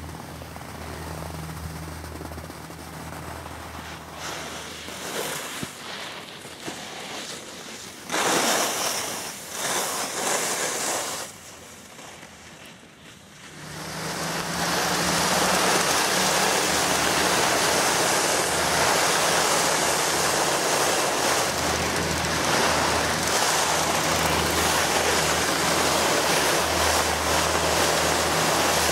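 Rushing noise of wind and snow on a ski slope. It is uneven at first, surges louder a few times about a third of the way in, dips briefly, then settles into a loud, even hiss for the second half.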